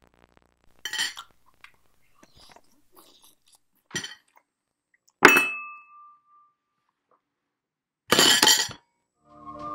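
Crunching bites and chewing of food, in a few separate bursts, with one sharp clink of tableware about five seconds in that rings briefly.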